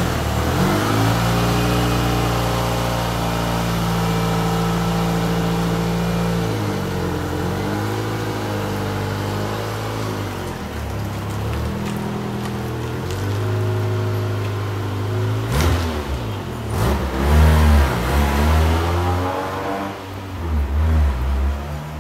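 Toyota AE86 Corolla GT-S's 1.6-litre twin-cam four-cylinder engine running steadily as the car pulls away, then revving up and down through the gears as it drives off, loudest about two thirds of the way through and fading near the end.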